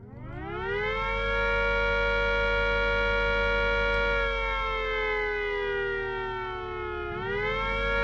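Small 240-volt electric test siren winding up to a steady wail, holding for about four seconds, then falling slowly in pitch for about three seconds before winding up again near the end. This is the Venner autowailer cycling it on and off for the red alert signal, the sign that its newly replaced motor coil is working.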